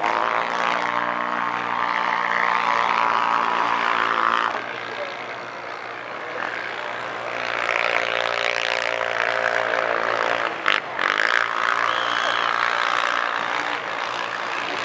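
A motor engine drones steadily, its pitch shifting about four and a half seconds in, with one sharp knock about ten and a half seconds in.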